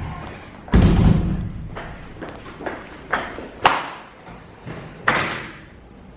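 A series of thumps and knocks: a heavy thud about a second in, then scattered lighter knocks, a sharp click a little past halfway, and another knock near the end.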